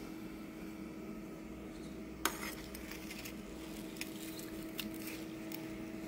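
A metal spatula knocking and scraping against a nonstick frying pan as shredded cabbage is turned. There is one sharp knock a couple of seconds in, then a run of lighter clicks, over a steady low hum.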